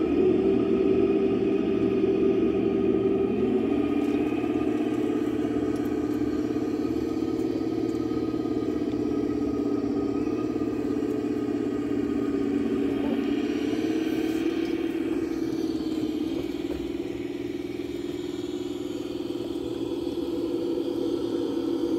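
Golf cart running at a slow crawl, a steady engine-like hum whose pitch steps down and up a few times as its speed changes.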